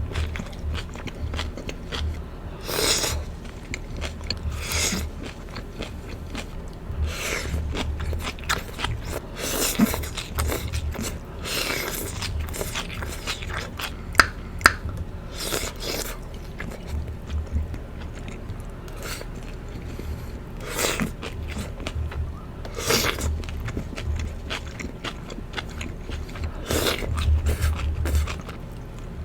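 Chewing and biting sounds of a person eating char siu chicken, irregular mouth noises with two sharp clicks about halfway through.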